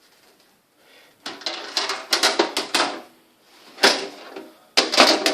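Desktop PC case side panel being slid and fitted back onto the chassis: scraping and rattling that start about a second in, with sharp knocks near the end.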